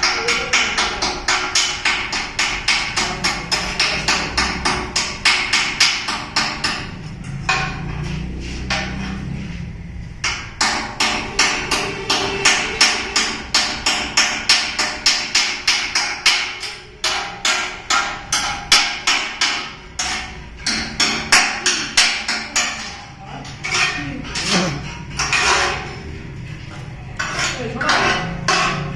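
Hammer striking steel over and over at the welded base of a steel pillar, about three sharp metallic blows a second, with a few short pauses.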